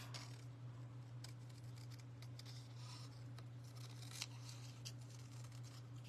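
Small craft scissors snipping a stamped image out of cardstock: faint, irregular short snips over a steady low hum.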